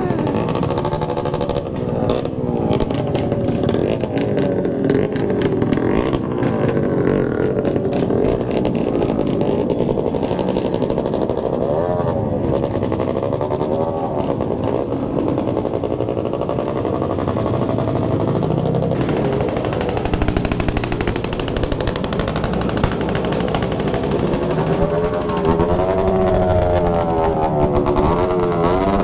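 Several motorcycle engines running loud, with repeated revving whose pitch swings up and down over and over, a little after midway and again toward the end.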